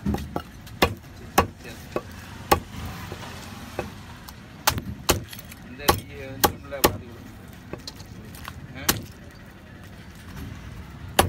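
A large curved fish-cutting knife chopping through a trevally's head and striking a wooden block: about a dozen sharp knocks at uneven intervals, bunched in the middle, then a pause of about two seconds before a last chop near the end.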